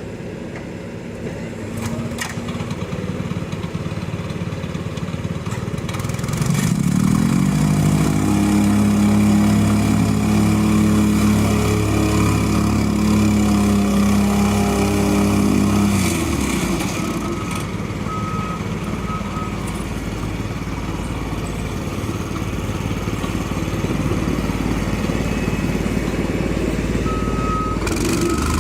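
Heavy construction machine's engine running. About six seconds in it revs up to a steady high pitch, holds for about ten seconds, then drops back, with a few sharp knocks along the way.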